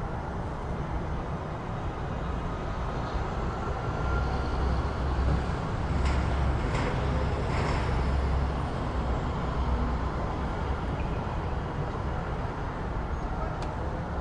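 City street ambience: steady traffic noise, with a vehicle rumbling louder through the middle and a few brief knocks and clicks.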